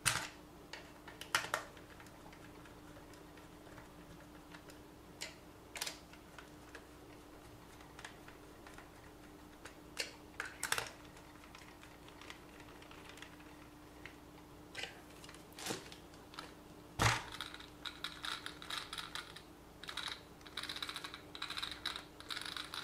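Scattered light clicks and taps of small plastic parts and tools being handled on a workbench, turning into a denser run of rattling clicks near the end, over a faint steady hum.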